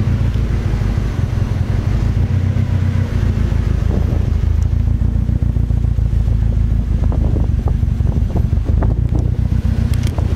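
Toyota AE86 Trueno's 4A-GZE four-cylinder engine idling steadily during a cold warm-up after sitting unused for over a month. A few light clicks sound over it near the end.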